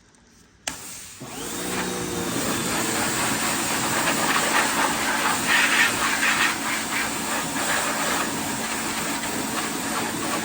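Small electric pressure washer starting up about a second in, its motor humming up to speed, then a steady hiss of water spray washing mud off a truck.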